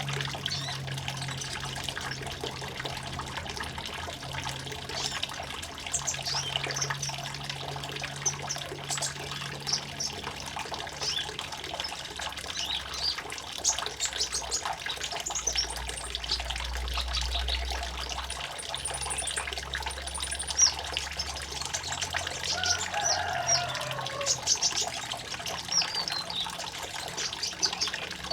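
Water trickling steadily, with small birds chirping in short, high calls throughout.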